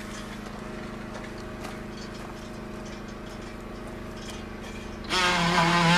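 A steady, even hum holding one pitch. About five seconds in, background music with a stringed-instrument melody comes in over it and is louder.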